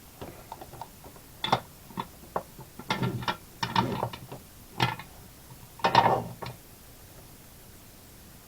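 Irregular sharp clicks and short rattling clatters of small hand tools and parts being handled and set down on a workbench, ending about six and a half seconds in.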